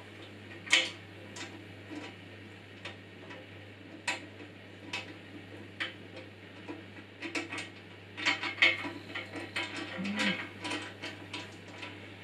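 Irregular clicks, taps and light rattles of hands refitting the lower wheel cover of a Parkside PBS 350 A1 bandsaw and working its fastening knob, with a quicker run of clicks about eight seconds in.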